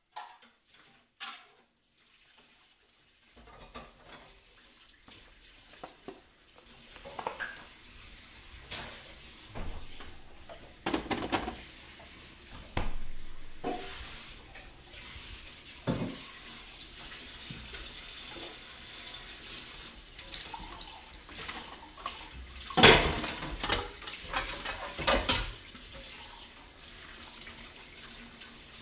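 Irregular knocks, clinks and clatter over a steady hiss. The opening seconds are nearly silent apart from a few clicks, and the loudest stretch is a cluster of sharp clatter about three-quarters of the way through.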